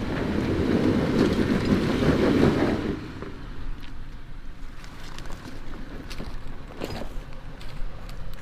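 Off-road truck's engine revving hard as it attempts a slick, muddy climb on wet tyres, easing off sharply about three seconds in. After that the truck runs more quietly, with scattered clicks and knocks.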